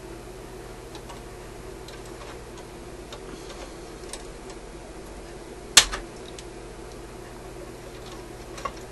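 Wire cutters nipping an old lead wire off a solder lug in a tube radio chassis: one sharp snip a little under six seconds in, with a few faint clicks of the tool against wires and lugs before and after it.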